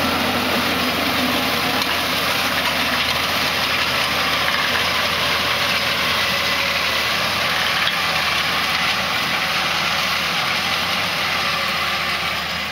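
Tractor engine running steadily under load while it pulls a John Deere 2623VT vertical tillage disc through the field, with the noise of the disc gangs working the ground. It eases off slightly near the end as the rig moves away.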